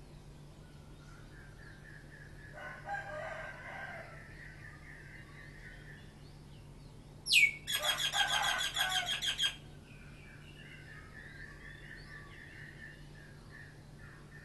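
Roosters crowing: a fainter crow about three seconds in, then a louder, closer crow of about two seconds near the middle, just after a sharp high chirp.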